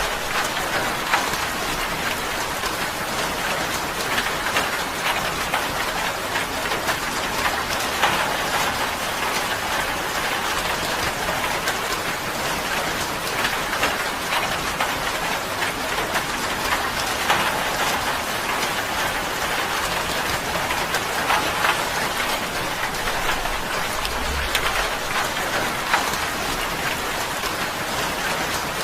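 Steady rain falling on a tin roof: a dense patter of drops with the odd louder single drop striking the metal.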